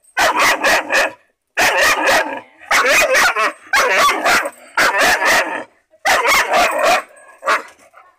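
German shepherd puppy barking hard in quick runs of four or five sharp barks, about one run a second, with a single bark near the end.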